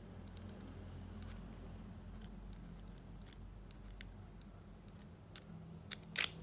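Faint scattered clicks and taps of a metal phone housing and its small parts being handled and pressed together by hand, with two sharp clicks close together near the end, over a steady low hum.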